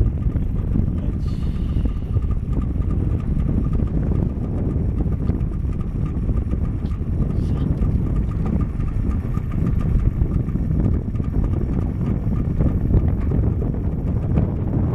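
Boat engine running steadily, a low drone.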